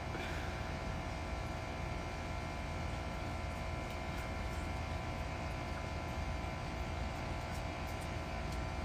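A steady hum over a low rumble, with several held tones and no change in level.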